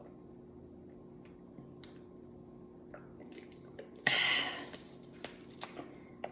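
Small clicks and swallowing sounds while drinking from a plastic water bottle, then handling the bottle and its cap, with one louder short rustling burst about four seconds in.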